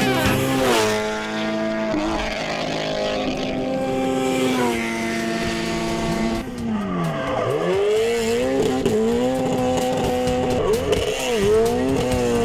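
Subaru WRX STI rally car's engine revving hard, its pitch dropping and climbing over and over with gear changes and throttle lifts, with tyres squealing as it drifts.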